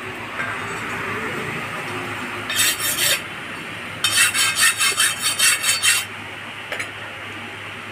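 Hand file rasping across the edge of an iron meat cleaver blade: a short run of strokes about two and a half seconds in, then a quicker run of about eight strokes lasting two seconds.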